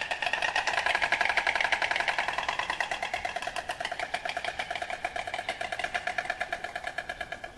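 Marabou stork clattering its bill: a fast, even rattle that slowly fades.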